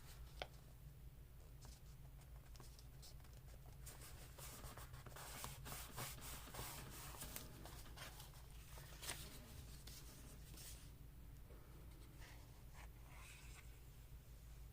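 Faint paper handling: rubbing, scratching and small clicks as paper pieces are pressed and worked on a journal page, busiest in the middle, over a steady low hum.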